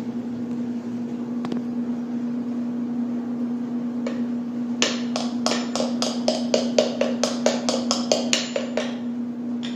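Hammer tapping a washing-machine motor's plastic cooling fan down its spindle: a quick even run of light taps, about four a second for about four seconds, starting about five seconds in. The fan is being seated lower so that it no longer rubs the top of the motor housing, which was causing the washer's grinding noise.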